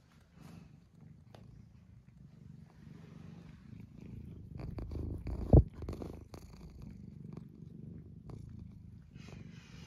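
Domestic cat purring close to the microphone, a steady pulsing low hum that grows louder toward the middle, with a few small clicks and rustles. One sharp thump about five and a half seconds in is the loudest sound.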